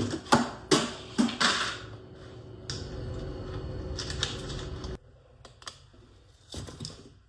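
Kitchen clatter: a quick run of sharp clicks and knocks as things are handled, over a steady low hum that cuts off about five seconds in, then a few more knocks near the end.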